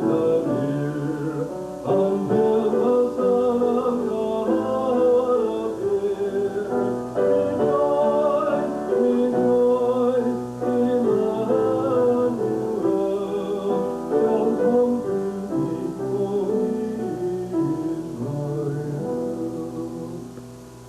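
Singing with piano accompaniment, a song that tails off near the end.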